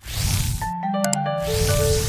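Music: a short piece with held notes stepping from one pitch to the next over a hissy, noisy backing.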